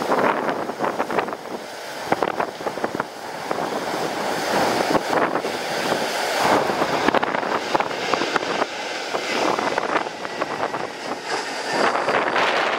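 Strong gusty wind buffeting the microphone, rising and falling in rough gusts.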